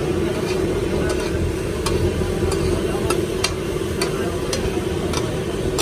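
Liver pieces frying in a pan while a metal spatula stirs them, clinking against the pan about twice a second, over a steady hum.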